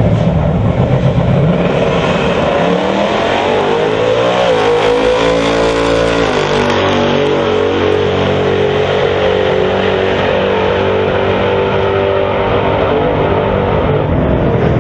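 Two drag-racing cars launching hard a couple of seconds in and accelerating away down the strip, loud engines climbing in pitch and dropping back at two gear shifts before running on steady at full throttle.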